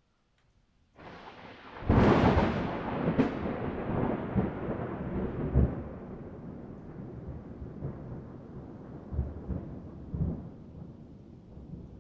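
A thunderclap: sound rises out of silence about a second in, breaks into a sharp crack about two seconds in, and rolls on as a long rumble with a few smaller surges that slowly fades.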